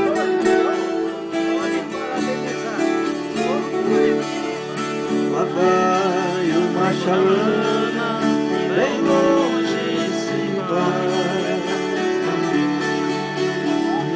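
Brazilian country string band playing an instrumental passage: a viola caipira picks a sliding melody over strummed acoustic guitar and other plucked strings.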